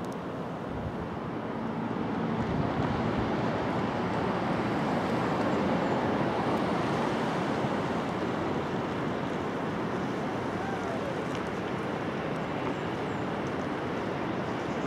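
Steady rushing wind noise, swelling slightly about two seconds in.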